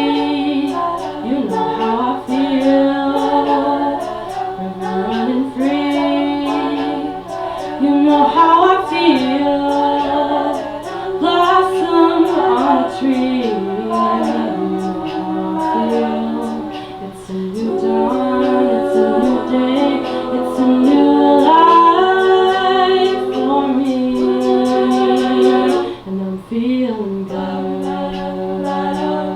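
A cappella group singing in multi-part harmony, several voices moving together with no instruments. Short sharp percussive strokes keep a steady beat above the voices throughout.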